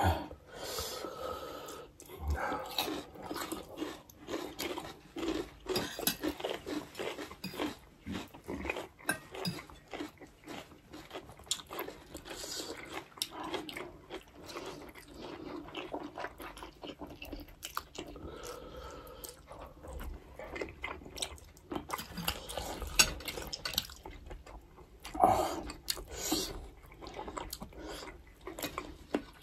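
Close eating sounds: chewing and slurping of spicy cheese instant ramen noodles and bites of sausage, a busy run of short wet smacks and clicks, with the odd clink of a fork or spoon on a plate.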